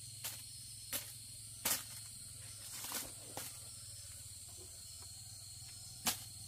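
Steady background drone of insects, broken by about half a dozen short, light clicks or knocks, scattered and unevenly spaced.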